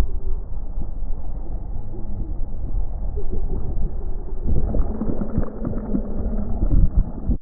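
Muffled low rush and gurgle of water with dull knocks, all the higher sound cut away, as a wave sloshes over the skiff and swamps the microphone.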